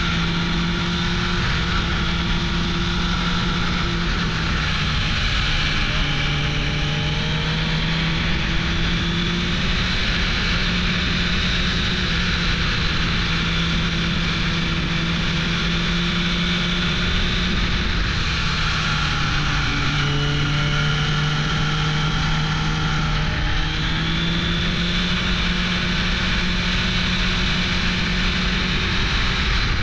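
Suzuki GSX-R 600 SRAD inline-four sportbike engine running under way, its note shifting up and down a few times as the revs change, over a steady rush of wind noise.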